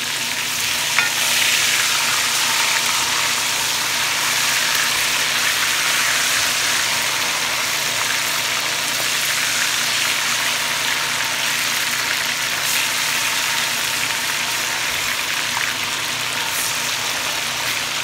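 Curry-seasoned chicken wings sizzling loudly and steadily in hot oil as they sear in a pot after the curry has been fried in the oil, while being stirred, with one sharp clack about a second in.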